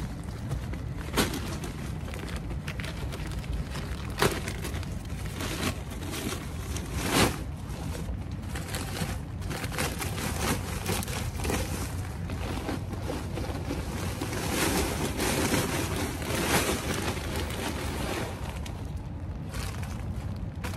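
Small white decorative stones poured from a bag and spread by gloved hand over black plastic sheeting: the gravel rattles and crunches and the plastic rustles. There are three sharper knocks in the first third and busier crunching a little past halfway.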